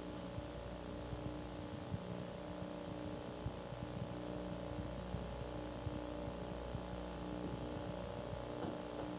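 Steady low hum made of several held tones over a constant hiss, with faint scattered ticks: the background noise of an old analogue videotape recording.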